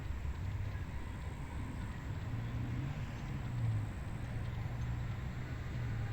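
Wind blowing across the microphone in an open rice paddy: a low, uneven rumble that swells in a gust a little past halfway.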